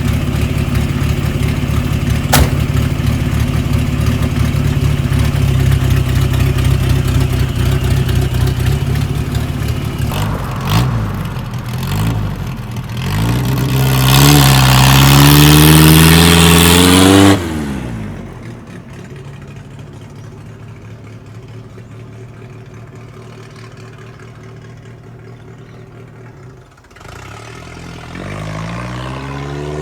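1973 Ford Pinto's four-cylinder engine running, fed from a gas can. About 13 s in it revs up with a rising pitch while a loud rushing noise of the tyres spinning in a small peel-out lasts about three seconds and cuts off abruptly. It then settles to quieter steady running and picks up again with rising pitch near the end.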